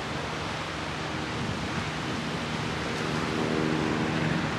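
Ocean surf washing onto a beach, a steady rushing noise. A low hum underneath grows louder near the end.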